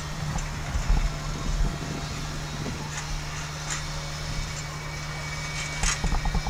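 Outdoor street ambience with road traffic: a steady low hum under irregular low rumbles, with a few faint clicks.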